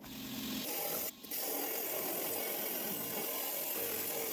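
Rock saw with a diamond blade cutting through a hard agate nodule: a steady grinding hiss with a faint hum, briefly dropping out about a second in.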